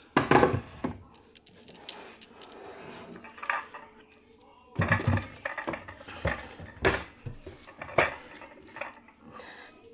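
Glass and plastic food-storage containers clinking and clattering as they are set down and stacked on a cupboard shelf: a string of separate knocks, the loudest just after the start and around five, seven and eight seconds in.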